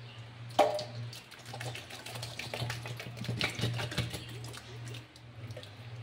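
Thick cream-style corn glopping out of a tin can into milk in an aluminium wok, with a sharp ringing clink about half a second in and then a run of irregular wet plops and taps. A steady low hum sits underneath.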